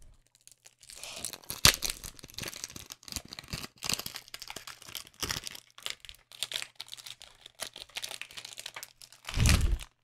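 Plastic shrink wrap crinkling and tearing as it is picked and pulled off a new 3x3 speed cube, in irregular crackles. A loud, muffled thud comes near the end.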